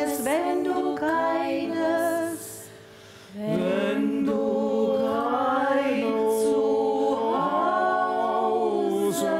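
Three women singing long held notes together in harmony, with a short pause about two seconds in before the chord comes back.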